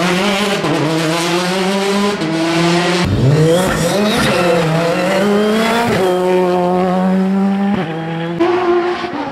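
Rally car engines at high revs in competition, the pitch dropping on lifts and downshifts and climbing again under acceleration. The sound jumps abruptly from one car to the next a few times.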